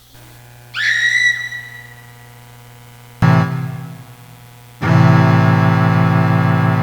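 Electronic keyboard: a high note sliding up and holding about a second in, a chord struck about three seconds in and fading away, then a loud, steady organ-like chord held from about five seconds in.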